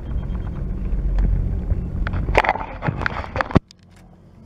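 Chairlift carrier rumbling along the haul rope, with a run of clattering knocks about two seconds in as the chair passes through a lift tower's sheave rollers. About a second later the rumble drops suddenly to a faint hiss.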